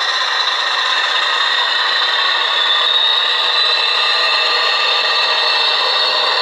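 Model diesel locomotive and its coaches running along the track: a steady whir and rattle of the motor and the wheels on the rails.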